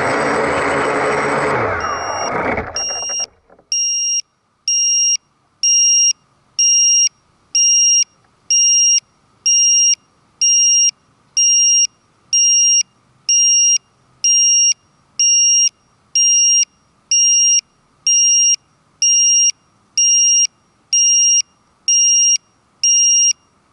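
Octocopter motors and propellers spinning down and stopping about three seconds in. After that an electronic beeper sounds a steady, high-pitched beep about three times every two seconds.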